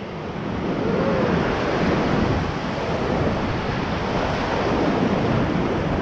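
Whitewater rapids rushing steadily around an inflatable raft, churning river water heard close up.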